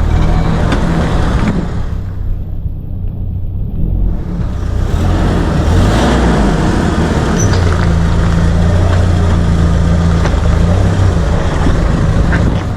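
A car driving, its engine and road rumble steady and loud, with a few short, faint squeaks now and then. The squeak comes on only once the car is warm, after a spell at motorway speed or in summer heat, and its cause is unknown.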